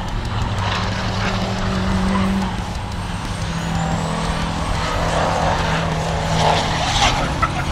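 Race trucks' engines running hard on the circuit, with the engine note dropping a little about three seconds in.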